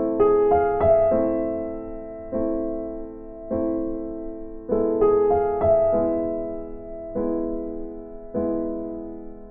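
Background music: electric piano playing slow chords struck about once a second, each left to fade, with a few short melody notes over them.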